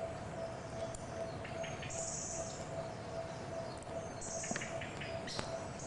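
Songbirds chirping, with two brief high bursts of song about two seconds and four seconds in, over a steady faint hum and background hiss.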